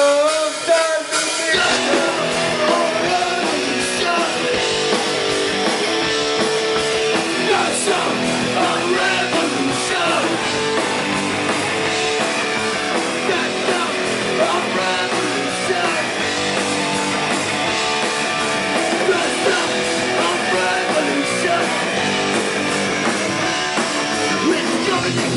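Rock band playing live, with guitars and drums in a loud, dense punk-rock style, the full band sound coming in about a second and a half in.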